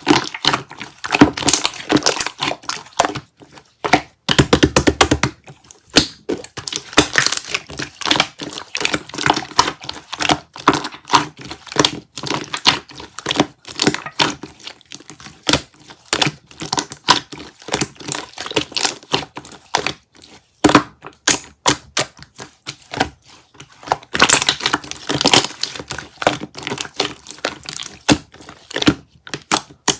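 Yogurt slime being squished and pressed by hand, making quick runs of small clicks and crackly pops, denser about four seconds in and again near the end.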